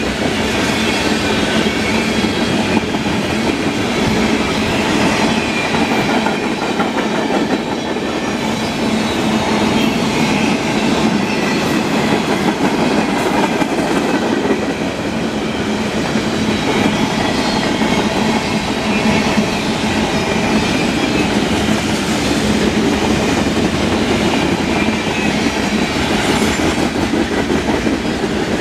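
Freight cars, mostly tank cars and covered hoppers, rolling past on the rails: a steady, loud rumble with wheels clattering over the track.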